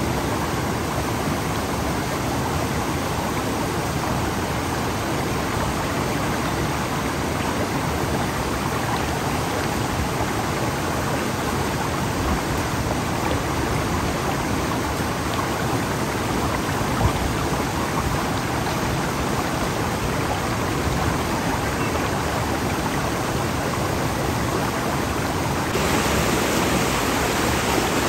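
Steady rushing noise like flowing water. It turns abruptly a little louder and brighter near the end.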